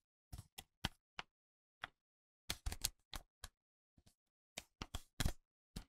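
A sheet of paper being folded in half and the crease pressed flat against a desk: short crackles and taps, some single and some in small clusters, with dead silence between them.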